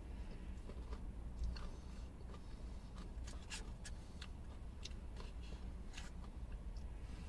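Quiet eating of ice cream with Maltesers pieces: chewing, with scattered short sharp clicks of a plastic spoon in the cup, over a low steady hum.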